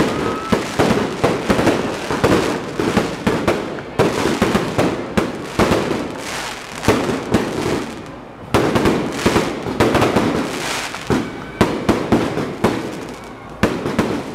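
Fireworks display: a near-continuous run of bangs and crackling from aerial shells bursting overhead. The bursts ease off briefly about eight seconds in, then pick up again.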